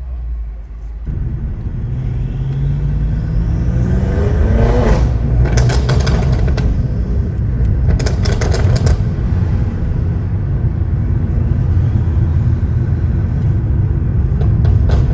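Tuned BMW F10 M5 Competition's twin-turbo V8 accelerating hard, its note rising steadily for about four seconds, then two bursts of exhaust crackles a couple of seconds apart before settling into a steady low rumble.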